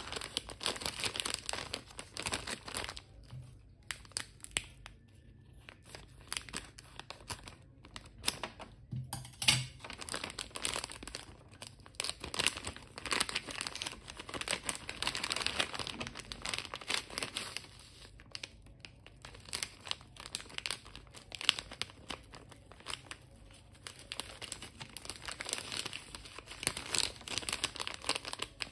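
Crinkly plastic wrapper of a Chupa Chups Belt sour candy strip crackling as it is handled and turned over, in irregular bursts with a few quieter pauses. A sharp, louder crackle comes about nine seconds in.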